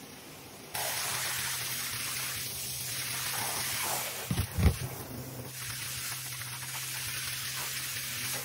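Hand-held shower head spraying water into a bathtub, a steady rush of running water that starts about a second in. A few loud knocks come about halfway through.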